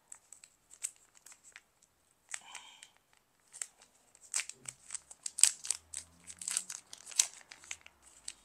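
Crinkling of a small packaging packet being worked open by hand, a run of sharp crackles that is sparse at first and busiest in the middle few seconds.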